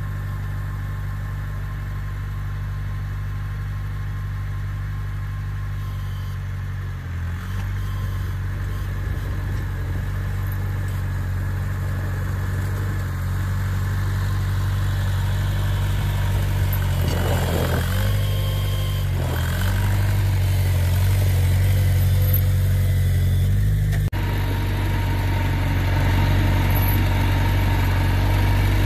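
Farmall Cub tractor's small four-cylinder engine running steadily while plowing snow, growing louder as it approaches, its note changing a couple of times along the way.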